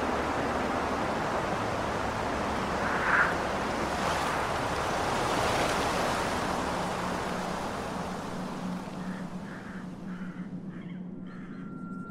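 Ambient sound-design soundtrack: a steady wash of noise that dies away over the second half, with a brief higher sound about three seconds in and a faint steady tone coming in near the end.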